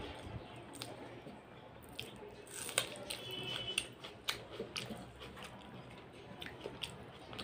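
Fingers mixing rice and boiled dal on a metal plate: soft wet squishing with scattered light clicks of fingers and rice against the plate, mixed with close-up chewing.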